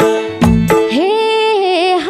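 Nepali folk band with harmonium and madal drum playing. About a second in, the drums stop and a woman starts singing, her voice gliding up into a long held note with vibrato.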